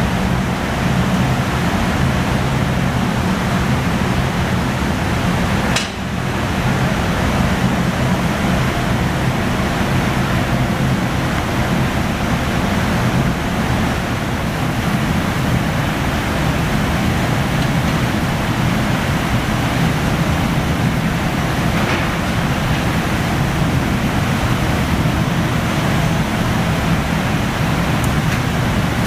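Steady roar of glass-factory furnaces and ventilation blowers, with a low hum under a broad rushing noise; it dips briefly about six seconds in.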